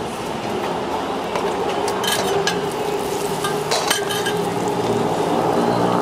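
Roti frying on a flat street-stall griddle with a steady sizzle, and a few sharp clinks of metal utensils against the pan and plate, about two, two and a half and four seconds in. Street traffic runs underneath.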